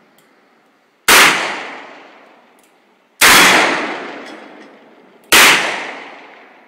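Revolver firing three shots about two seconds apart, each a sharp crack followed by a long echo that fades away.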